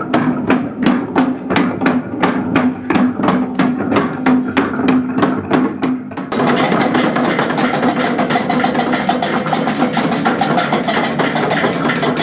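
Experimental noise music: an even train of clicks, about four a second, over a steady low drone, cutting abruptly about six seconds in to a dense, steady wall of noise.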